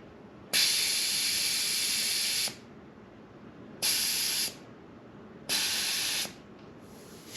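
Air hissing out of a motorcycle tire's valve stem in three bursts, a long one then two shorter ones, each starting and stopping sharply as the pressure is let down.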